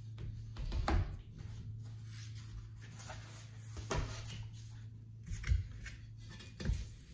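Sheets of stained glass and cardboard packing being handled and set down on a wooden table: rustling and sliding with a few knocks, the loudest about a second in, over a steady low hum.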